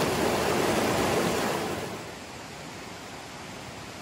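Shallow river rushing over boulders, a steady loud rush of water that fades down about halfway through to a much quieter steady hiss.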